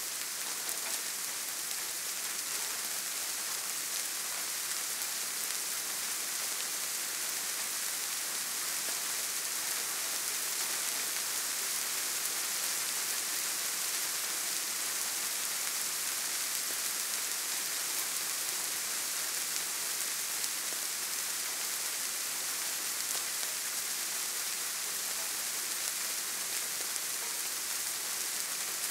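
Soft rain falling steadily, an even hiss of many small drops with no thunder.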